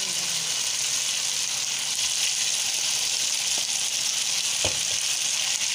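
Diced chicken frying in hot oil in a wok: a steady sizzle, with one short knock about three-quarters of the way through.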